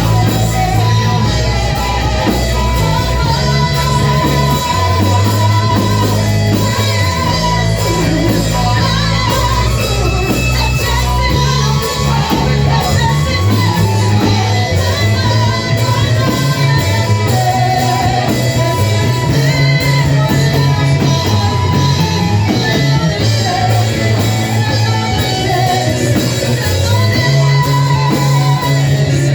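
Worship music played by a band with electric bass and guitar, with singing over it. The bass steps through sustained notes under a continuous, loud mix.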